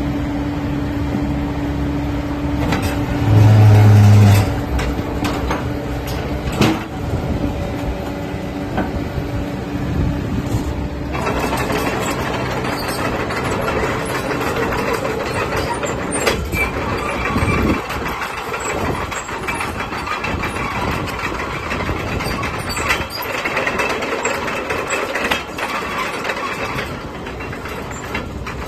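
Caterpillar 307E2 mini excavator's diesel engine running as the machine is operated, with a loud low hum for about a second, about three seconds in. From about eleven seconds in the sound turns harsher and fuller as the machine works.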